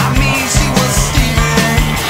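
Rock music soundtrack with a steady beat.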